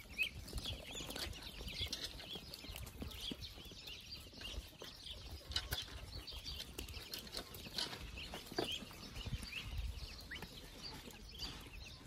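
A flock of ducklings peeping without pause, many short high chirps overlapping.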